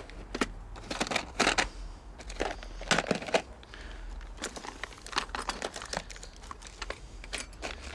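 Small items being handled and moved about in a repair box: irregular clicks and light knocks with some crinkling.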